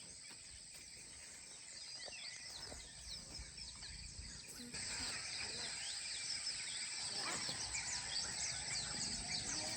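Faint outdoor morning ambience: many small birds chirping at once. From about five seconds in, a steady high-pitched whine joins in, typical of insects.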